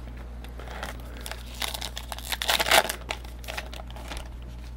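A trading-card pack's wrapper crinkling and tearing open, a second or so of rustling that is loudest about two and a half seconds in.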